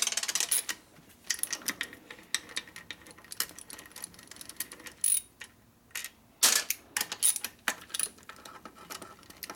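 Ironhead Sportster transmission and shifter being worked through the gears by hand: a run of irregular metallic clicks and clunks, with louder knocks near the start, about five seconds in, and between six and a half and eight seconds in.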